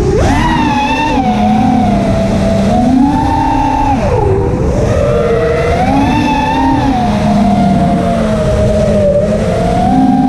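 The brushless motors and propellers of a 5-inch FPV racing quadcopter (T-Motor F40 Pro II 2600kv motors) whining in flight, the pitch rising and falling with throttle. The pitch drops sharply about four seconds in and climbs back.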